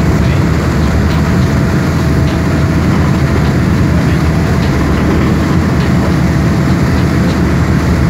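Small passenger boat's engine running steadily, a loud, even low rumble, with the rush of water from its wake.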